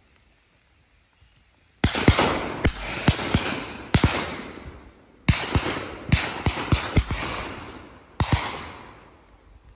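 Shotguns firing on a duck drive: after a short lull, a quick run of about a dozen shots, some in close pairs, each echoing away.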